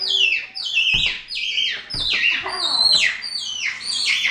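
Black-capped (tufted) capuchin monkey giving a rapid string of short, high-pitched, falling squeals, excited greeting calls of a happy monkey.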